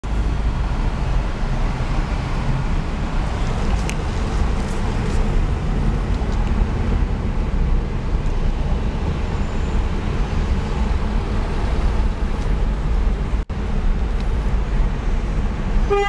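Steady low road and engine rumble of a car in slow freeway traffic, heard from inside the car's cabin. The sound briefly cuts out once, a little past the middle.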